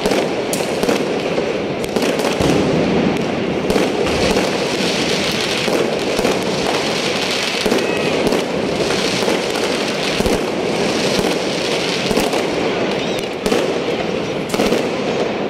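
Many fireworks and firecrackers going off at once, a dense, unbroken stream of bangs and crackling pops with no pause.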